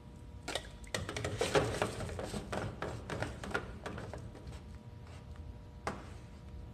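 Plastic water-filter cartridge and filter bowl clattering and knocking as they are handled and refitted, a quick irregular run of taps for about three seconds, then one sharp click near the end.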